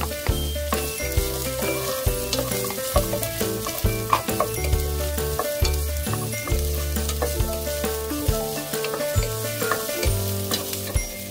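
Food sizzling as it fries in a pan and is stirred, with frequent sharp taps of the utensil against the pan. Background music with a steady bass line plays underneath.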